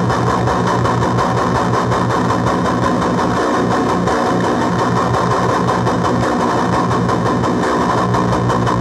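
Electric guitar played through a JHS Bonsai overdrive pedal into an amplifier: a thick, steady, heavily distorted buzzing sound.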